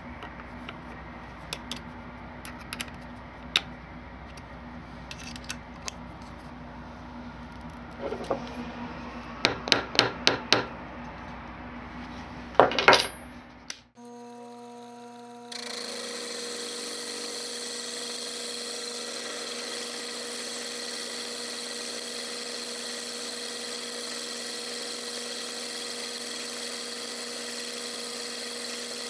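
For about the first 14 seconds, clicks and knocks of the steel block being set and clamped in a milling vise, with louder clusters of knocks near the middle. Then a Sherline milling machine's spindle motor runs with a steady whine while the end mill cuts the ground A2 tool-steel block.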